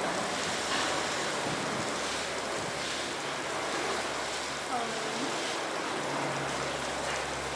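Steady rushing outdoor noise, with faint distant voices of onlookers now and then.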